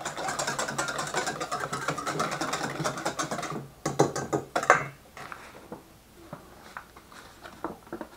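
Wire whisk beating beer in a stainless steel bowl for a batter: a fast run of clinking strokes for about three and a half seconds, then a few louder knocks against the bowl, then light scattered clicks and scrapes.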